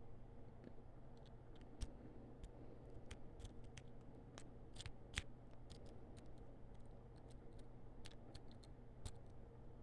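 Lock picks working inside a padlock's keyway: faint, irregular metallic clicks and scratches, with a couple of sharper clicks.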